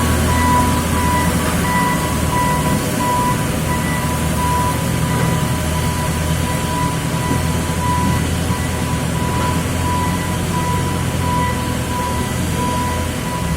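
Cardboard baling press running, its motor and hydraulic pump giving a steady low hum, with a high electronic beep repeating steadily on and off.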